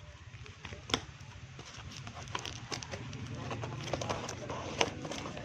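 Scattered light clicks and taps of a sealed starter-kit box and its packaging being handled and opened, the sharpest about a second in, over a steady low hum.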